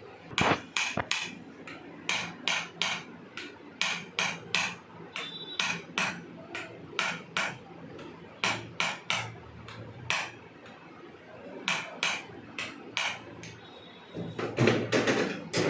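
A long series of sharp taps or knocks in quick groups of two to four, about two a second overall, with a louder, denser cluster near the end.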